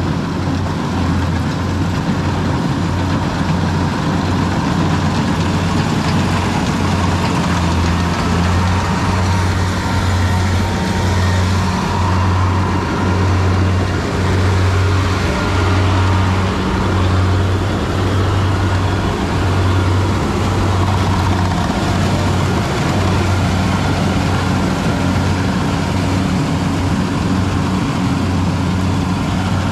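Kubota rice combine harvester's diesel engine running steadily as it cuts rice, a loud, constant low drone.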